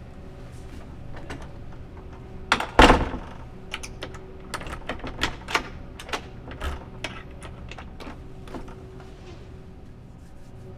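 A heavy thump a little under three seconds in, then a run of light, irregular metallic clicks and rattles for several seconds: keys being handled in a door lock.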